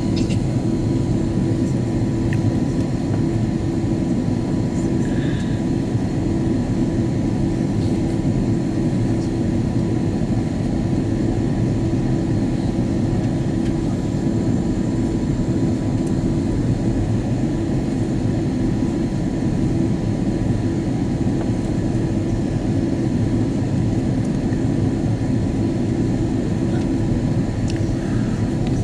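Steady cabin roar of an Airbus A330-200 in flight, heard from a window seat over the wing: engine and airflow noise, with a faint steady hum running through it.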